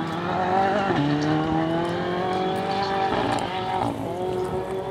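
Ford Fiesta R5 rally car's turbocharged four-cylinder engine pulling hard out of a corner, its pitch climbing steadily, with drops like gear changes about a second in and again after three seconds.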